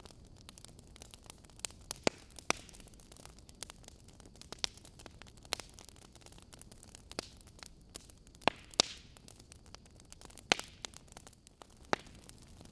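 Wood fire burning in a fireplace: irregular sharp crackles and pops of the logs over a low steady hiss, a few loud pops standing out about two-thirds of the way through.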